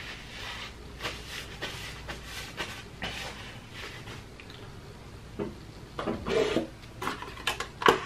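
Paper napkin rustling against the face with small handling noises, then a few louder knocks as things on the table are moved. A sharp knock just before the end is the loudest sound.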